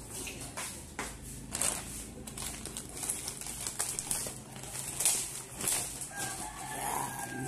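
Scattered clicks, taps and rustles as scissors and a parcel are handled close to the phone, with a brief pitched call near the end.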